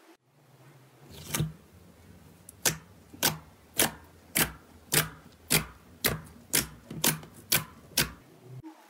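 Fingertips pressing into a sheet of clear slime, trapping and popping air pockets: about a dozen sharp pops, evenly spaced at about two a second.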